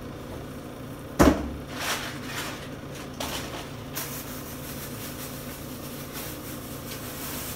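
A sharp knock from the hard plastic pistol case being handled on the countertop about a second in, followed by a few lighter clicks. After that comes the rustling of a plastic bag being handled.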